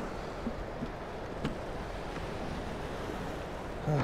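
Steady rush of water from the spillway, with a few light clicks from a plastic minnow-bucket lid being handled. A short grunt is heard near the end.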